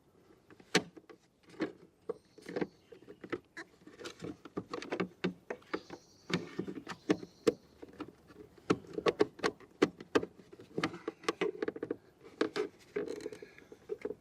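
Hard plastic van door-mirror housing parts being handled and fitted together: a steady run of irregular clicks, taps and small knocks.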